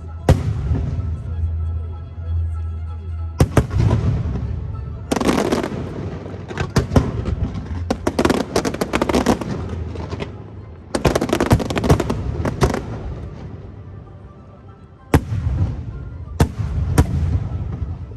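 Aerial fireworks bursting: single sharp bangs, then several rapid runs of crackling reports in quick succession.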